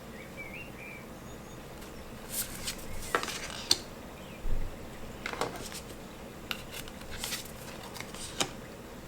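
Tarot cards handled one by one: a string of short swishes of card stock sliding and sharp little clicks and taps, spaced irregularly a second or so apart.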